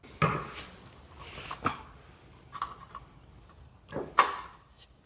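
Metal parts of a garage door opener rail being handled and tapped, making scattered knocks and clinks. The sharpest comes about one and a half seconds in, and there is a pair of knocks near four seconds.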